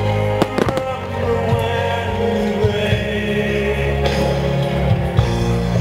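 Choral music, sustained sung notes, played over outdoor loudspeakers as a fireworks display's soundtrack. A few sharp firework bangs sound about half a second in.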